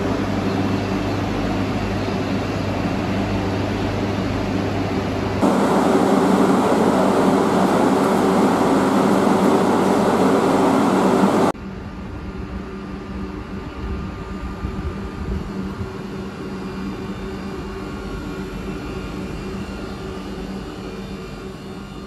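Vande Bharat Express electric trainset standing at the platform, its onboard equipment giving a steady hum with several steady tones over a rushing noise. The sound changes abruptly twice where clips are joined: about five seconds in a louder rushing noise takes over, and about six seconds later it drops back to a quieter hum with steady tones.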